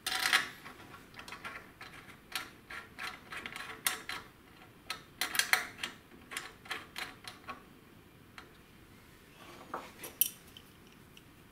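Light metallic clicks and clinks of a steel nut and washers being spun down a threaded bolt by hand, setting a blind rivet nut. A quick, irregular run of ticks lasts about seven seconds, then comes a brief scrape and one sharp metal clink near the end.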